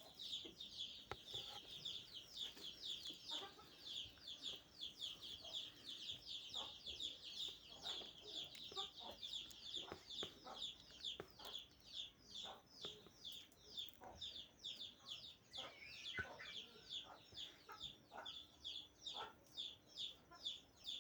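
Many small birds chirping nonstop: high, quick, falling chirps several a second, overlapping, with faint scattered clicks beneath.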